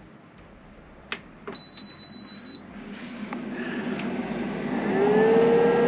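Air fryer started: a button click, then one high beep about a second long. A fan then spins up over a couple of seconds, its pitch rising and settling into a steady whirring hum as the 1500 W load comes on.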